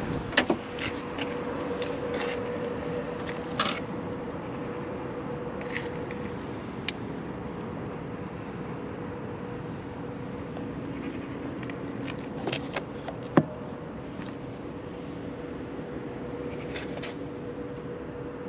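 Scattered light clicks and knocks from handling the Kia EV6's open rear door and cabin, the sharpest knock about 13 seconds in, over a steady faint hum and outdoor background noise.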